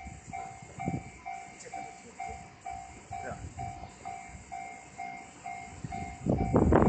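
Japanese level-crossing alarm bell ringing steadily, a little over two strokes a second. About six seconds in, a loud rush of noise rises over it as the 209 series electric train reaches the crossing.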